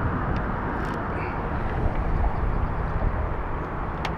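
Steady outdoor background noise with a low rumble and a faint hum, with a single sharp click near the end.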